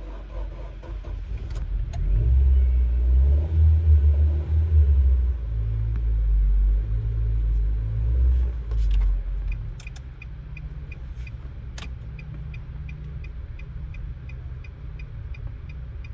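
Nissan March engine starting and running at a high idle, then dropping to a lower steady idle about ten seconds in. It starts because the immobilizer has accepted the newly programmed chip key. An even ticking, about two or three times a second, runs through the second half.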